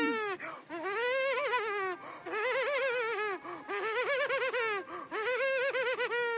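A played-back funny laughing sound: a high-pitched warbling laugh in about five phrases, each rising and then falling in pitch with a fast wobble.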